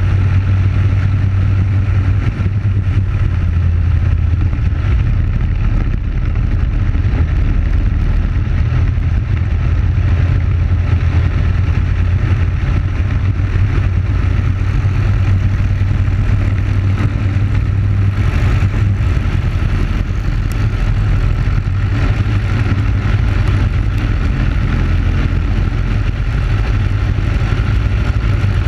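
Racing kart's Briggs & Stratton Animal single-cylinder four-stroke engine running steadily at speed, heard onboard.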